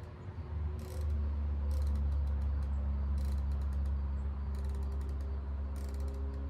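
Rifle scope elevation turret being dialed, its detents ratcheting in several short runs of rapid clicks, likely dialing back toward zero to check the scope's tracking. Under it a steady low rumble sets in about a second in.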